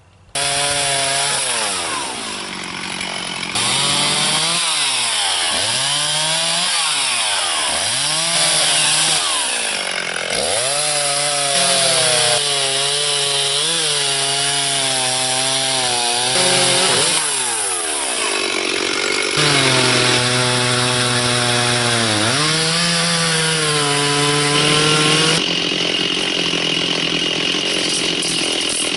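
Stihl chainsaw cutting through the trunk of a felled Norway pine, its engine pitch dropping and rising again over and over as the saw works through the cuts.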